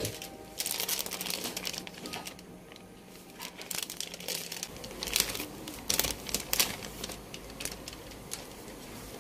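Cardboard and paper packaging rustling and crinkling as a frozen katmer pastry is handled out of its box and paper-lined tray. The sound comes in two spells, the second with sharper crackles.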